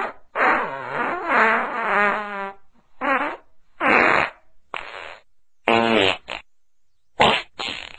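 Fart sounds in quick succession: one long, wavering, pitched fart lasting about two seconds, then six or seven short blasts.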